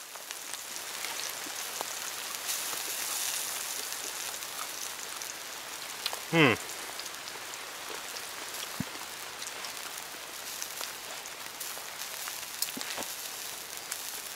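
Steady patter of rain falling in woodland, with scattered faint ticks. A little over six seconds in, one short sound glides quickly down in pitch.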